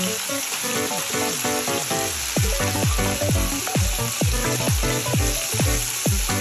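Flour-coated calamari deep-frying in a pot of hot oil, a steady sizzle. Background music plays over it, and about two seconds in a beat of deep bass hits that fall in pitch comes in.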